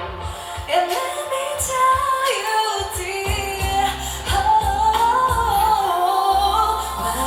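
Live pop song: a female voice sings a melody over band backing. The deep bass is thin for most of the passage and comes back in about six seconds in.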